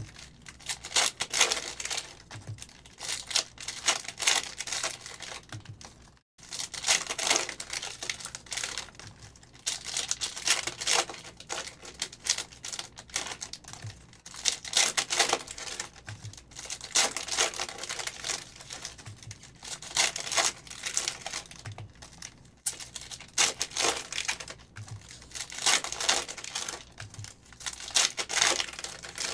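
2022 Panini Optic football cards being flicked off a stack one by one and dealt onto a pile: quick papery clicks and slides that come in spurts of a few seconds with short pauses between.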